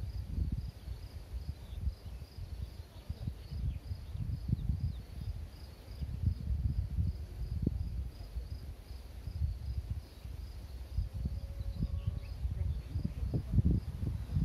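Wind buffeting the microphone in uneven gusts, with a faint high insect chirping that repeats steadily about twice a second.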